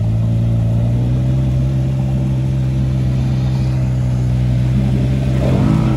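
Off-road vehicle engine running at steady revs, a strong even drone. A voice starts near the end.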